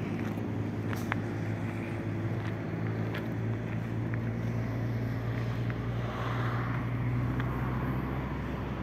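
A truck engine running steadily with a low hum. The hum grows a little louder towards the middle and eases near the end, with a few faint clicks over it.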